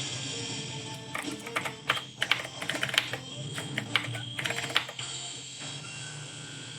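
Typing on the 8BitDo Retro mechanical keyboard: irregular clacking keystrokes that stop about five seconds in, over background music.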